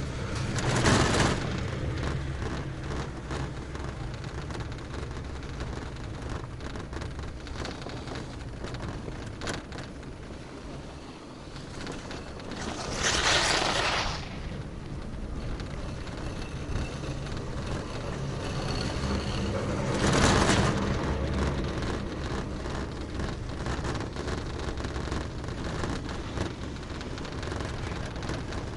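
Taihei Sakudo high-speed detachable quad chairlift running, heard from the chair as a steady low rumble of the moving haul rope. It rises three times into a brief louder clattering rush as the chair passes over the sheave wheels of a lift tower: once about a second in, again around the middle, and once more about two-thirds of the way through.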